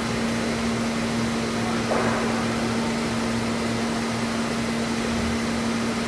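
Studer S33 CNC universal cylindrical grinder running an angular plunge grinding cycle: a steady hum under an even rushing noise.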